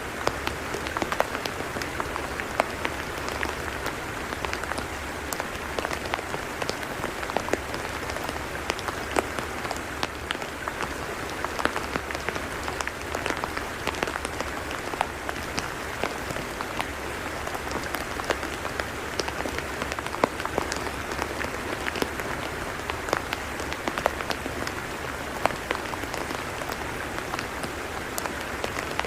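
Rain falling on a tidal mudflat: a steady hiss of rain, dotted throughout with many small, sharp drop clicks.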